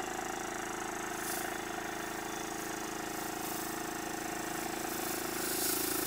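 Live steam model locomotive running on compressed air at speed, its cylinders and motion turning the axle-driven boiler feed pump, giving a steady mechanical hum that grows a little louder near the end.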